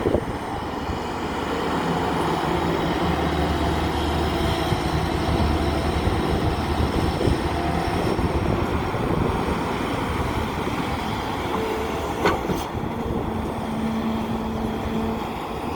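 Diesel engine of a JCB 3DX backhoe loader running steadily at work, with a sharp knock about twelve seconds in.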